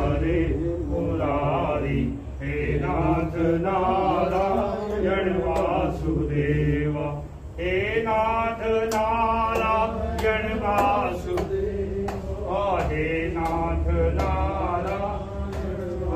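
Devotional Hindu kirtan chanting: voices singing a slow, melodic chant with long held, wavering notes, with light sharp ticks in the second half.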